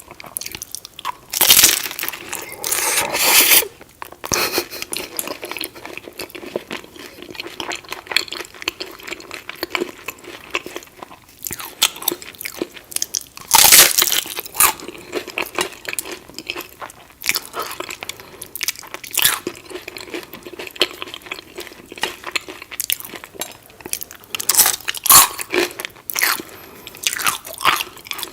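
Close-miked crunching and chewing of a crispy taco shell. Loud crunching bites come about 2 seconds and 14 seconds in, with crackly chewing in between.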